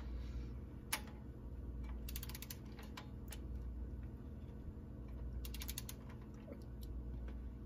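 Torque wrench ratcheting on the transmission pan bolts as they are tightened to 70 inch-pounds: a sharp click about a second in, then two short runs of quick ratchet clicks a few seconds apart, with a few single clicks between.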